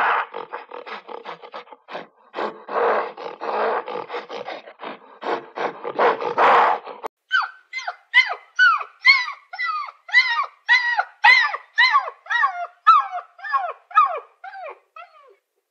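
Harsh, raspy animal calls for about the first seven seconds. Then a husky puppy gives a quick run of short yelping howls, two or three a second, each rising and falling in pitch, fading out near the end.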